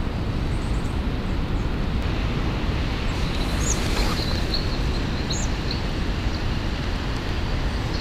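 Steady wind blowing over the microphone, a deep rumbling noise, with a couple of faint, high bird chirps about three and a half and five seconds in.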